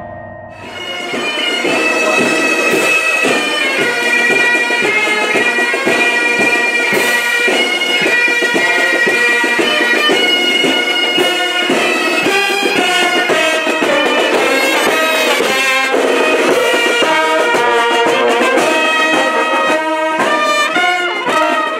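A marching band of bagpipes and brass (trumpets, trombone, saxophone) playing a march, the bagpipes' held notes over a steady beat. It starts about half a second in.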